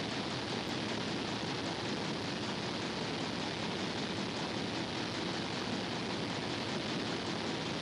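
Steady, even rushing noise of a ship's engine room, with no distinct tool sounds standing out.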